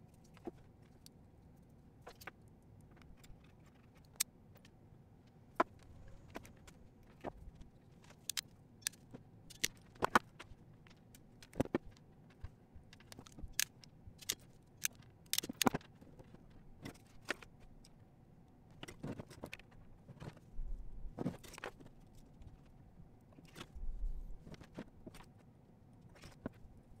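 Irregular sharp clicks and light taps of small hard parts being handled, busiest in the middle, with a couple of dull low bumps near the end.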